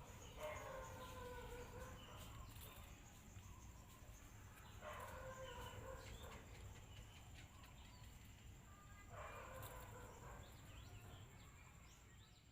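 A puppy whimpering: three faint whines, each slightly falling in pitch and about a second long, roughly four seconds apart, over a faint steady high-pitched tone.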